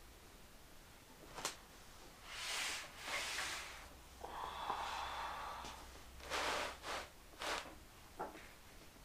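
Quiet handling noises of motorcycle chassis parts as the swing arm is worked onto the frame at its pivot: a sharp click about a second and a half in, then rubbing and scraping, with a few short knocks and shuffles near the end.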